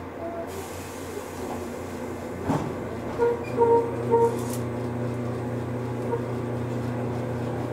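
413-series electric train, a steady low hum. A knock comes about 2.5 s in, after which the hum steps up a little in pitch, followed by a few short beeping tones.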